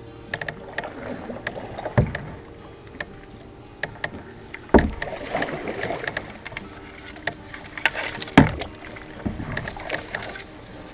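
Canoe being paddled through a tight creek: paddle splashing, with frequent small clicks and knocks of wood against the canoe's hull. Three louder thumps come about two, five and eight seconds in.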